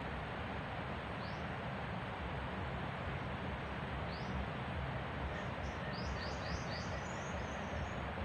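A bird's short, high, rising chirps: one about a second in, another about four seconds in, then a quick run of them from about five and a half seconds to near the end, over a steady background hiss.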